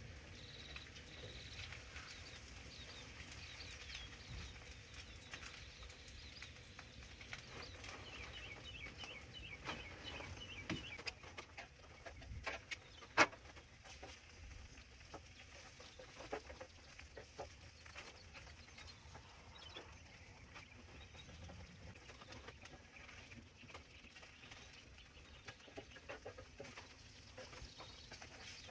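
Metal spatula clicking and scraping on the steel top of a Blackstone flat-top griddle while food is turned, with one sharp clack about 13 seconds in. Faint bird chirps sound in the background.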